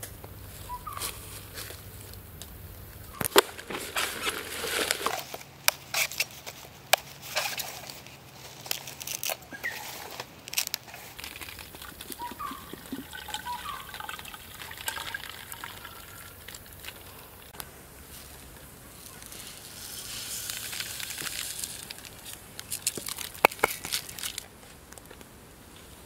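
Coconut water poured from a cut green coconut into a bamboo tube, a hissing trickle of liquid. Before it comes a run of sharp clicks and knocks, and a few short high chirps come in between.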